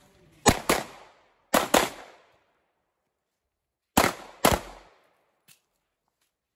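Pistol shots in three pairs of double taps: two quick shots, two more about a second later, then after a gap of about two seconds a final, slightly more spaced pair. Each shot cracks sharply and rings off briefly.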